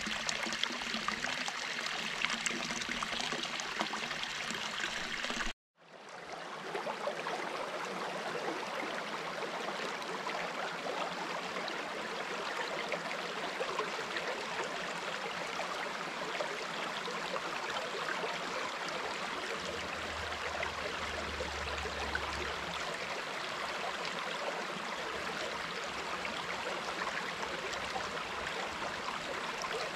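Clear, shallow stream running over rocks: a steady, even rush of flowing water. The sound drops out abruptly about five and a half seconds in and fades back up within a second.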